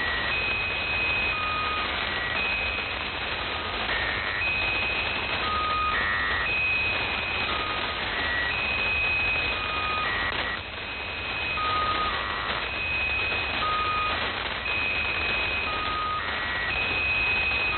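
Shortwave radio reception of the Squeaky Wheel channel marker: a repeating squeaky figure of electronic tones, a long high tone followed by shorter lower ones, recurring about every two seconds over steady radio static.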